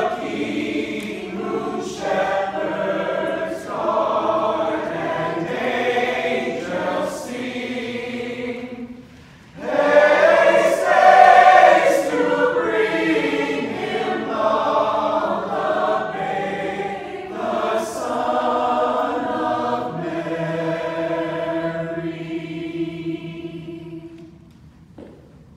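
Mixed choir of men's and women's voices singing together, with a short break about nine seconds in; near the end they hold a long chord that fades out.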